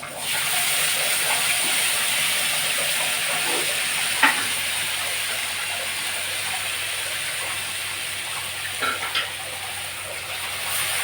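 Ground tomato-onion masala sizzling in hot coconut oil in a pan, the sizzle starting suddenly as the paste goes in and then hissing steadily. A few light clicks sound during it.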